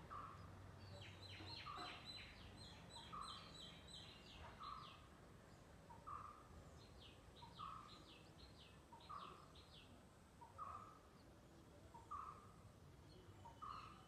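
Faint birdsong: one bird repeats a short mid-pitched note about every second and a half, while another gives two bouts of rapid high chirps.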